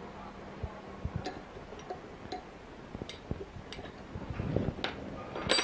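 Light, irregular metallic clicks and clinks, some with a brief ring, as a small hand tool works the retaining nut on an electric water pump's brass impeller. A brighter ringing clink comes near the end.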